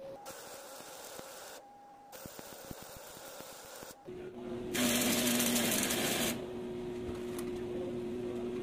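A few light clicks of tool handling, then about halfway in a power tool's motor starts with a steady whine, spinning a metal disc. For about a second and a half it grinds loudly against metal.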